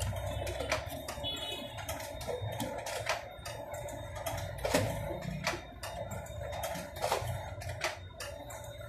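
Canon photocopier running a print job: a steady machine hum with irregular clicks and clacks as the sheets feed through.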